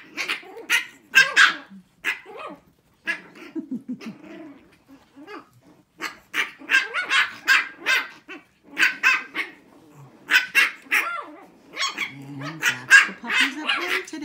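Six-week-old Shih Tzu puppies barking at each other in a play fight: rapid, sharp, high puppy barks in bursts, with a quieter lull of a few seconds early on and again briefly after the middle.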